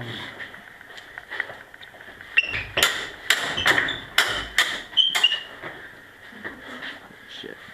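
Steel swords clashing in a quick flurry about two and a half seconds in: a run of sharp metallic clanks, several with a short ring, mixed with a few dull thuds of feet. The flurry stops a little past the middle.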